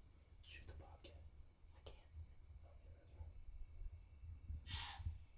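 Faint, steady chirping of crickets, a short high chirp about three times a second, over a low rumble. A brief breathy hiss sounds near the end.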